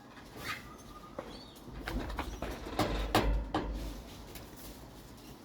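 A bird calling, with several sharp knocks that are loudest about three seconds in.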